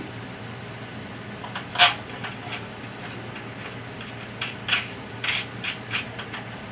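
Metal J-bolt and hex nut clinking against the metal frame as the bolt is slid into its hole and the nut turned on by hand: one sharp clink about two seconds in, then a quick run of lighter clicks near the end.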